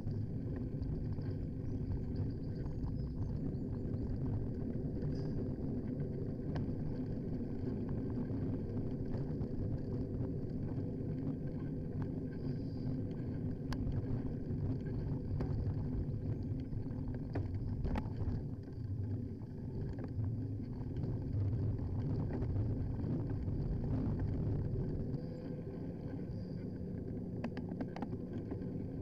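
Steady low rumble of road and wind noise on a handlebar-mounted camera on a moving bicycle, with a few sharp rattles.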